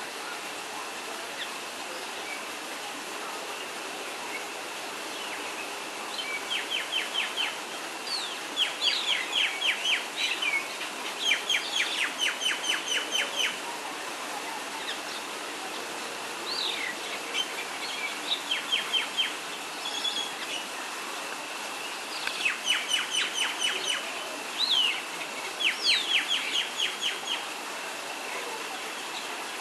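Small birds calling: repeated trills of rapid chirps, each lasting about a second, in two clusters with a few short rising whistles between them, over a steady background hiss.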